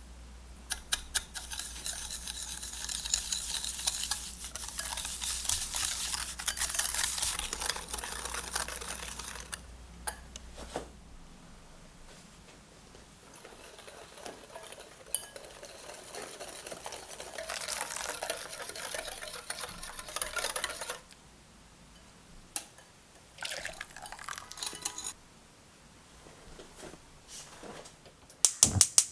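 A kitchen utensil stirring and scraping against a dish, with clinks of metal on dishware, in long stretches broken by short pauses, and a quick run of sharp clicks near the end. A low hum sits under the first third.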